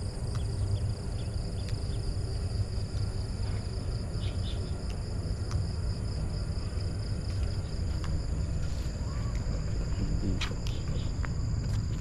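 Steady high-pitched insect chorus with a low rumble underneath and a few short clicks.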